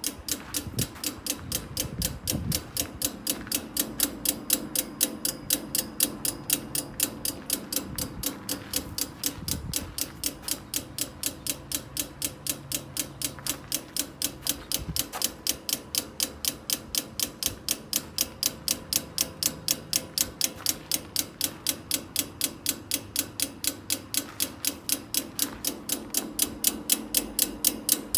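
Outdoor air-conditioner unit (condenser) making a steady, rapid clicking, about two to three clicks a second, over a low hum. It is the same clicking the owners' old unit made even with the fan off, and its cause is unknown.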